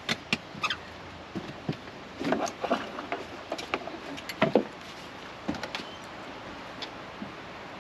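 Scattered light clicks, knocks and short rustles, irregular and about a dozen in all, of small objects being handled; the loudest knock comes about four and a half seconds in.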